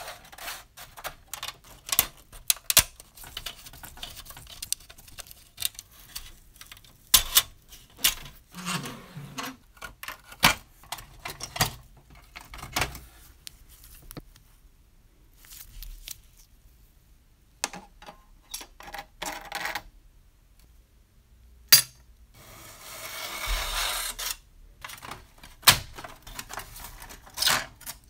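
A thin-metal toy bus being taken apart by hand: irregular clicks, taps and clinks of sheet metal and small parts, with a stretch of scraping about two-thirds of the way through.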